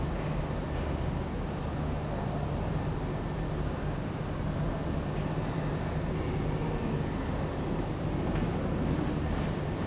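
Steady low rumble of road traffic with a constant low hum, and a couple of faint, brief high chirps about five and six seconds in.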